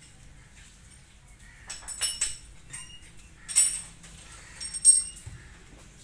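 Grey parrot crunching food with its beak, in three short, crackly bursts a little over a second apart.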